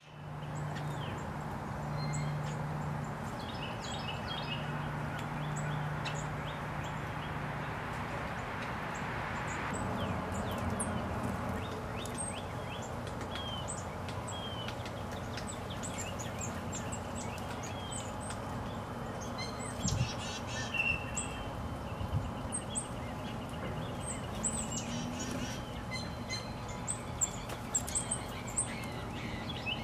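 Wild birds chirping with many short, high notes over a steady background hum, with a few sharp ticks in the last third.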